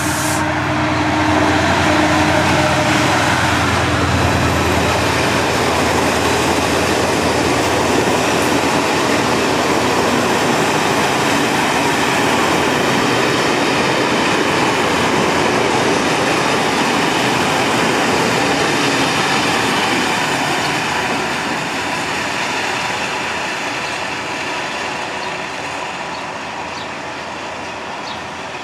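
Diesel train passing close through the station: an engine hum in the first few seconds, then a long steady rush of wheel and rail noise that slowly fades over the last several seconds.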